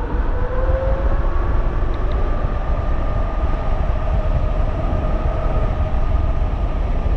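3,000-watt electric bike underway: wind rushing over the microphone with the motor's steady whine on top, its pitch rising a little in the first second and then holding.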